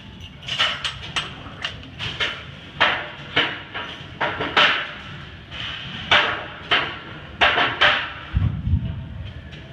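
Weight plates and a barbell clanking: a string of sharp, irregular metallic clanks, about fifteen of them, with a deeper thud about eight and a half seconds in.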